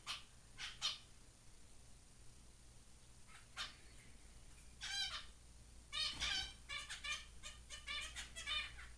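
Zebra finches calling: short nasal beeping notes, a few single ones at first, then a quick run of notes from about six seconds in.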